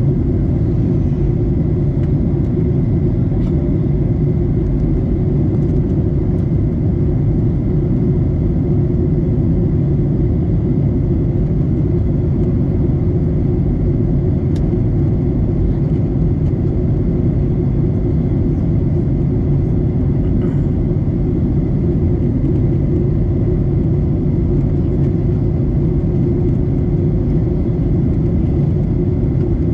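Steady cabin noise inside a Boeing 737-800 on descent: the rumble of its CFM56-7B turbofan engines and air rushing past the fuselage, with a faint steady high whine above it.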